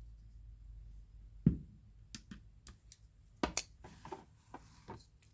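Bestech Slasher folding knife's axis lock being worked as the blade is flicked open and closed: a few sharp clicks, the loudest about a second and a half in, a close pair about three and a half seconds in, and lighter ticks between.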